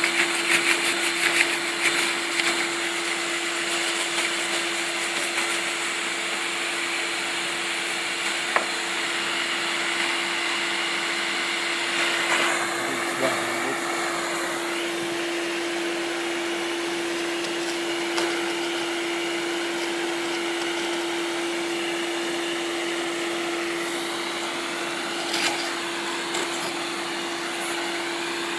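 Compressed-air blast nozzle hissing steadily as it blows old paint layers off a wooden door panel, with one constant tone in the hiss and a few faint knocks.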